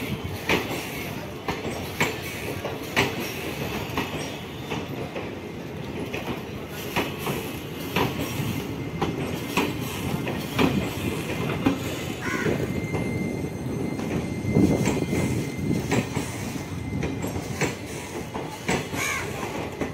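Passenger coaches of the Malda Town–Howrah Intercity Express rolling past: a steady rumble of wheels on rails, with sharp clicks roughly once a second as the wheels cross rail joints. From about twelve seconds in, a thin high-pitched wheel squeal runs beneath it.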